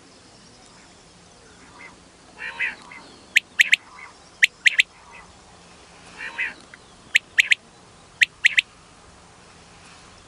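Common quail calling twice. Each time a low nasal note is followed by two quick sets of three sharp, liquid whistled notes.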